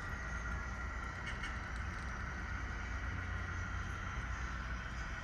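Railroad car wheels rolling past with a steady high-pitched flange squeal over a low rumble, and a few faint clicks.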